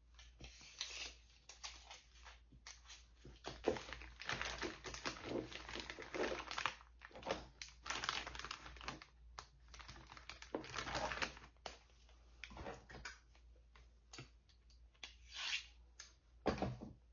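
Hands handling and opening small plastic cosmetic packaging: irregular crinkling, rustling and light clicks and taps.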